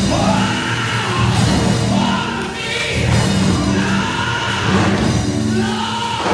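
Live church music: a man singing into a microphone over instrumental backing with a steady beat, loud and amplified.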